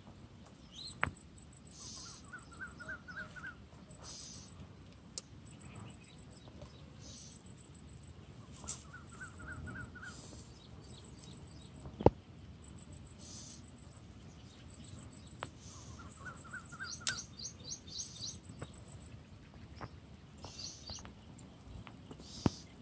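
Birds singing outdoors: a short phrase of quick rising notes repeats three times among scattered chirps, with a very high, rapid ticking trill coming again and again. A few sharp clicks cut through, the loudest about halfway.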